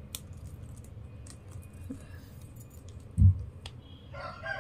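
Light clicks and rattles of stiff plastic wire strands being handled and pulled through a hand-woven plastic bag, with one dull thump about three seconds in. Near the end a rooster starts crowing.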